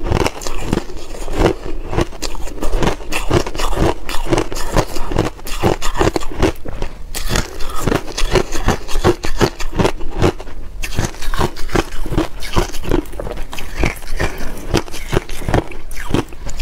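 Close-miked chewing of reshaped (pressed shaved) ice: a continuous run of rapid, crisp crunches as the compacted ice breaks up in the mouth.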